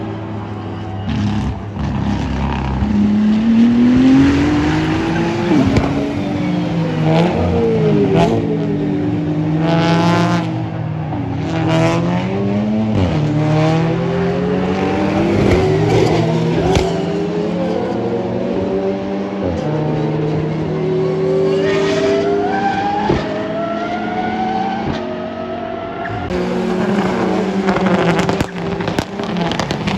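Several racing cars passing on a circuit one after another, their engines rising in pitch under acceleration and dropping sharply at each gearshift, often more than one engine heard at once.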